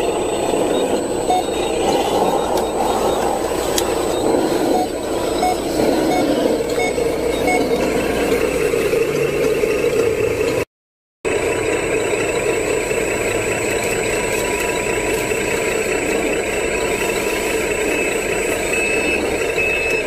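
Radio-controlled model JCB backhoe loader and tipper truck running: a steady mechanical whir of small motors, with a few faint beeps in the first half. The sound drops out for a moment just before halfway and comes back as a steadier, higher whir.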